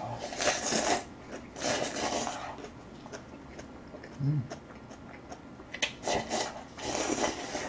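Slurping Chapagetti black-bean instant noodles from a paper cup: four noisy slurps, two near the start and two near the end, with small clicks of chewing and a short low hum about four seconds in.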